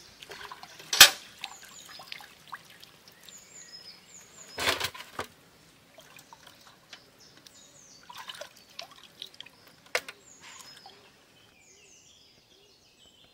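Water splashing and dripping in a few short bursts as the cut pieces of snake fish are washed by hand in water. Small birds chirp in the background.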